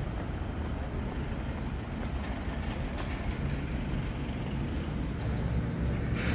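Steady low rumble of city street traffic, with a short hiss near the end.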